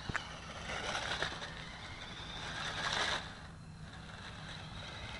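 Faint motor buzz of a radio-controlled Super Cub model plane in flight, swelling about a second in and again near three seconds as it passes, then fading.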